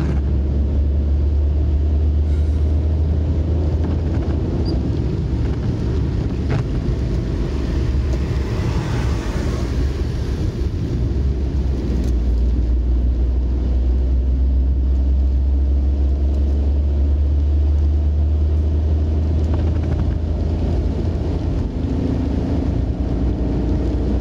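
A car driving on a wet road in rain, heard from inside the cabin: a steady low rumble with the hiss of tyres on wet pavement, and a swell of hiss about nine seconds in.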